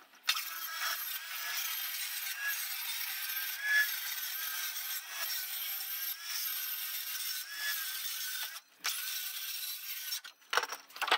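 Cordless circular trim saw with a fine steel-cutting blade cutting lengthwise through the thin corrugated steel top skin of an insulated roof panel: a continuous high-pitched cutting noise with a steady whine. It breaks off briefly about nine seconds in, resumes, stops about ten seconds in, and is followed by a couple of sharp knocks.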